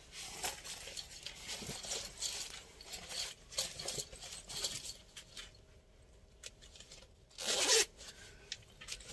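Fabric of a reflective safety vest rustling as it is pulled on over the head and settled on the shoulders. About seven and a half seconds in there is one short, loud rasp as the vest is fastened at the chest.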